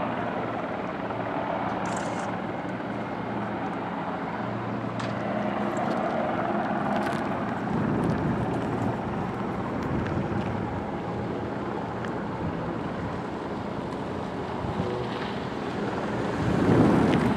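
Steady engine drone with wind buffeting the microphone, swelling briefly near the end.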